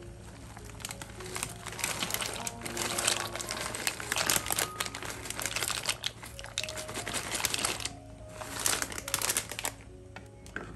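Plastic bag of dry penne pasta crinkling as it is handled and tipped, with the dry pasta rattling as it pours into a pot of boiling water: a long spell of dense crackling, then a shorter one near the end.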